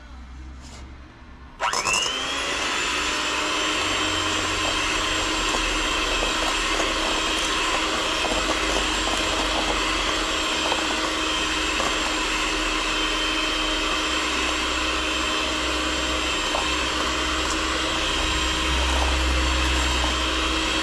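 Electric blender puréeing spinach leaves with milk: the motor starts about a second and a half in, spins up within a fraction of a second and runs at a steady whine, with a few faint ticks of the blade against the leaves.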